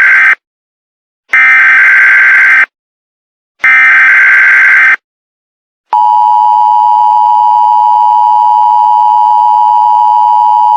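Emergency Alert System tones: three SAME header data bursts about a second apart, the first already under way. About six seconds in, the steady two-tone EAS attention signal starts and holds.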